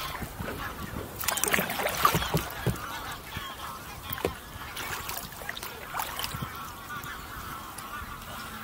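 Geese honking repeatedly in short, scattered calls, with the light splash of a kayak paddle dipping into the water.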